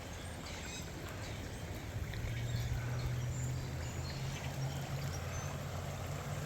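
Floodwater running across a washed-out gravel driveway, a steady rushing noise, with a low rumble growing stronger about two seconds in.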